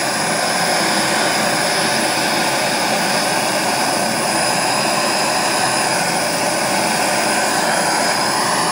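Two-nozzle gas torch burning with a steady, even hiss. Its flame is heating an aluminum radiator's header plate so that low-temperature aluminum solder wire melts onto a tube joint.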